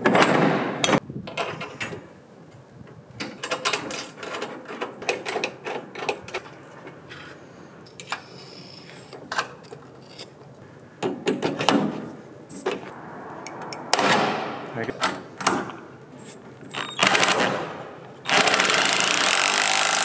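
Clicks and metallic knocks of a spanner and socket working steel bolts on a Land Rover soft-top hoop bracket. Near the end there is a steadier, louder noise lasting about two seconds.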